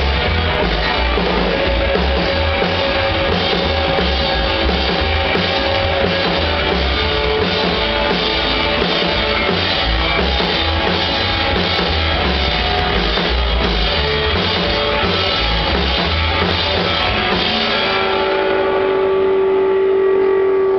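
Live band music from upright double bass, electric guitar and drum kit, played with a steady driving beat and no singing. Near the end the bass and drums drop away, leaving a long held note.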